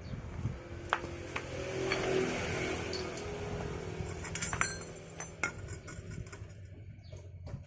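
Light metallic clinks and taps of hand tools and small metal parts being handled, several in a row with a quick cluster a little after the middle, over a steady low hum.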